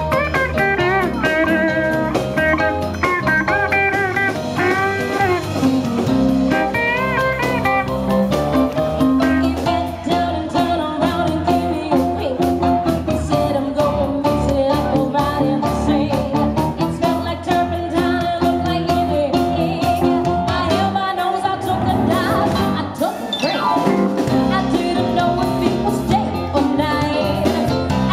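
Upbeat blues-rock music led by guitar, with a voice singing over it.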